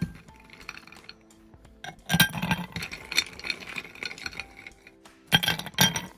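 Ice cubes dropped by hand into a glass tumbler, clinking against the glass and each other: one clink at the start, a longer clatter about two seconds in, and two quick clinks near the end.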